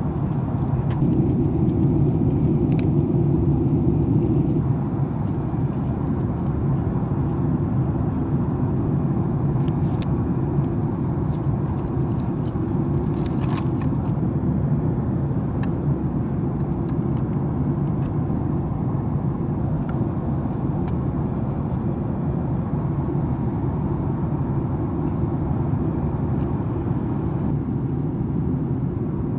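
Steady low rumble from inside a moving vehicle, with a few light clicks.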